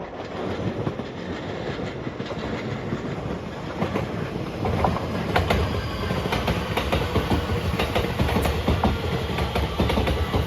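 A train running past, its wheels clacking over the rail joints; the rumble builds and the clacks get louder and more frequent from about four and a half seconds in.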